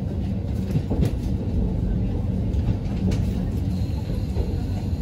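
Local diesel railcar running along the line, heard from inside the carriage: a steady low rumble of engine and wheels, with a few sharp clicks from the rail joints.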